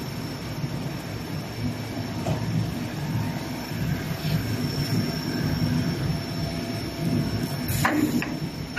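Plastic sheet extrusion line running: a steady mechanical rumble with a faint, thin, high whine, and a couple of sharp clicks near the end.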